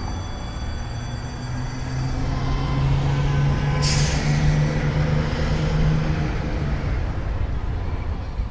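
School bus engine running with a steady drone, and a sharp air-brake hiss about four seconds in.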